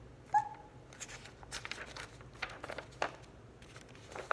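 Soft paper rustles and light taps as the pages of a homemade folded-paper book are pressed and turned.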